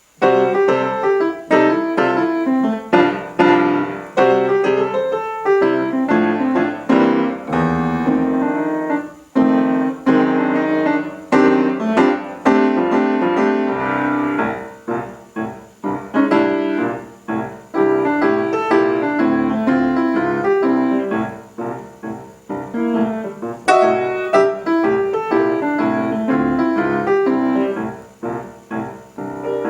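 Solo piano playing a fast, busy piece with many quick notes and chords, beginning suddenly right at the start after silence.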